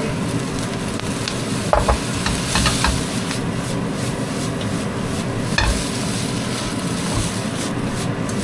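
Egg fried rice sizzling steadily in a hot wok as it is stir-fried, with a little water just added so the rice doesn't dry out. There are a few sharp scrapes or knocks of the spatula, about two seconds in, again shortly after, and near the middle.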